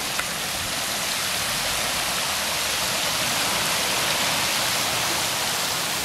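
Steady rushing and splashing of hot-spring water running into outdoor thermal pools, a little louder around the middle.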